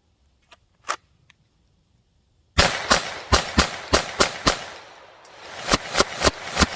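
Rapid handgun fire, about three shots a second, each crack followed by echoing ringing. It comes in two quick strings with a short lull between them, after a few faint mechanical clicks about a second in.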